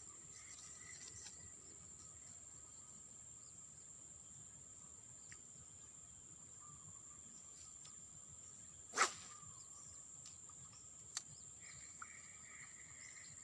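Quiet outdoor ambience under a steady, high insect drone, broken by one sharp knock or click about nine seconds in and a couple of fainter ticks after it.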